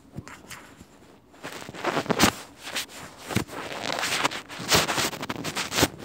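Rustling and scraping from a phone being handled close to its microphone, starting about a second and a half in, with several sharp knocks.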